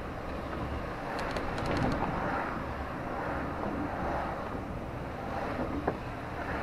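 Steady outdoor city traffic noise, with a short run of faint high ticks about a second in and a single sharp click near the end.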